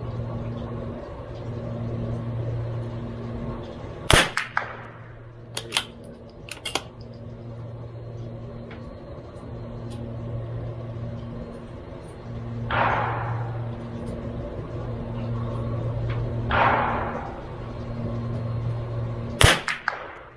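CZ 457 MTR bolt-action .22LR rifle firing two shots, about four seconds in and near the end, each followed by a few lighter clicks. A steady low hum runs underneath, and two softer rushing noises come in between the shots.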